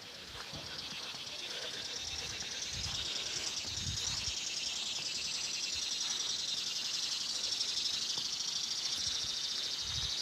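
Steady high-pitched insect buzzing that swells over the first couple of seconds and then holds, with a few faint low thumps.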